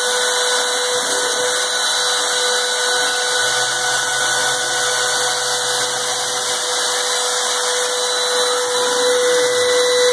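Spindle of a home-built CNC machine milling half-inch plate with light, shallow cuts at about 60 inches a minute: a steady tone over an even cutting hiss.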